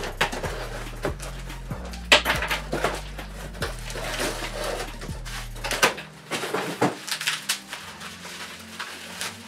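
Cardboard box being ripped open, with sharp tearing and scraping of the flaps, then a plastic bag crinkling as the wrapped item is pulled out, over background music with a bass line that stops about six seconds in.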